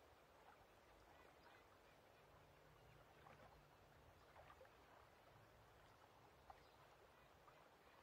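Faint lake ambience recording: a soft low water wash with scattered short bird calls, like waterfowl quacking.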